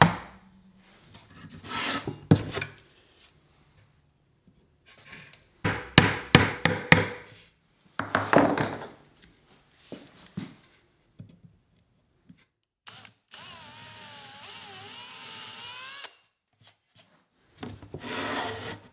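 Bursts of wood scraping, rubbing and knocking as a steel drawer slide and hand tools are worked against a plywood drawer. Then, about two-thirds of the way through, a cordless drill runs steadily for about three seconds, drilling the 13/64-inch hole for the slide's rear locating pin.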